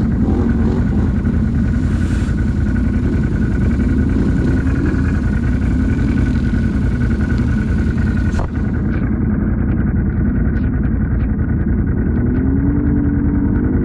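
Can-Am ATV engine running steadily under load while riding through wet grass and mud, a low rumble with a thin steady whine above it. A few light ticks come in during the second half.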